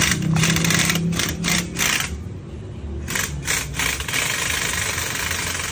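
Workshop machine noise: a steady low mechanical hum with scattered clicks and knocks, most of them in the first two seconds.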